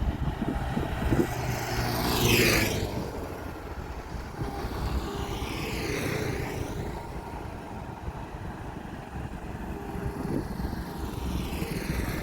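Outdoor vehicle noise: a steady rumble with one vehicle sweeping past about two seconds in, the loudest moment, and another around six seconds in.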